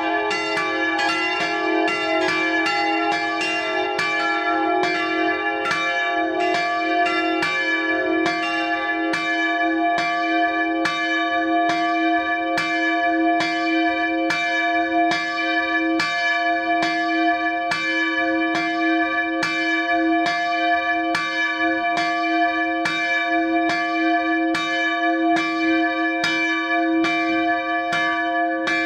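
Swinging bronze church bells, cast by the Fischer foundry of Trnava, ringing in full swing with a long ring carrying between strokes. The strokes crowd together over the first several seconds, then settle into an even beat a little more than once a second.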